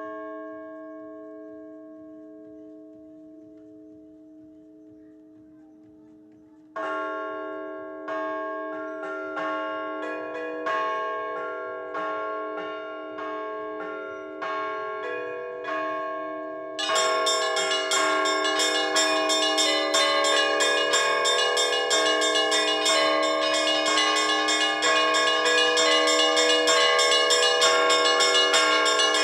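Orthodox church bells rung as the call to vespers and the all-night vigil. One deep stroke rings out and fades slowly, then a steady run of single strokes starts about a quarter of the way in, and a little past halfway the full set of bells, high small bells included, breaks into a fast, dense peal.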